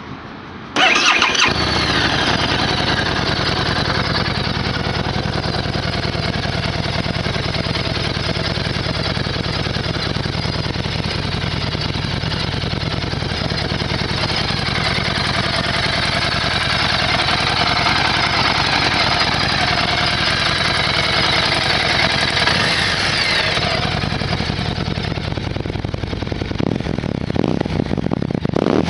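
Harley-Davidson Street 750's liquid-cooled V-twin on its stock exhaust starting up about a second in and settling into a steady idle.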